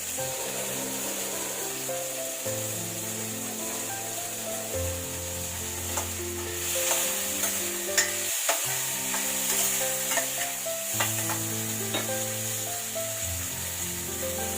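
Food sizzling in hot oil in a pan, with a spatula clicking and scraping against the pan, most often in the second half. Soft background music with held chords plays under it.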